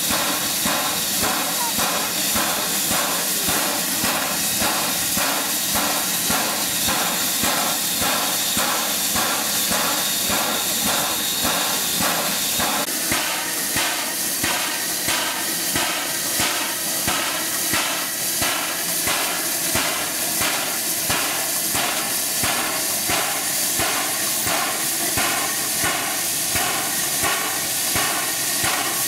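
NZR AB-class steam locomotive No. 778 standing in steam: a steady hiss with an even beat of about two a second. The hiss grows brighter about halfway through.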